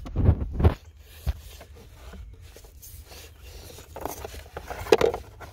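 Cabin air filter being pushed and scraped into its plastic housing behind the glove box: irregular rustling and scraping of the filter against plastic, with a sharp knock about five seconds in.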